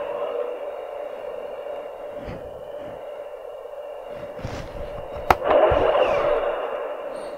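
Electronic battle-simulation sound effects from the Hasbro Black Series X-Wing helmet's built-in speaker: a steady, radio-like hum, with a sharp crack about five seconds in followed by a louder swell.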